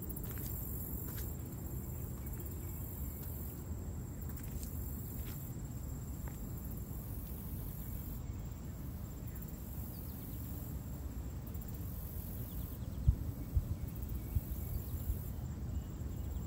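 Summer lakeside ambience: a high, shimmering insect buzz that swells and fades every few seconds over a low steady rumble. A few louder knocks come near the end.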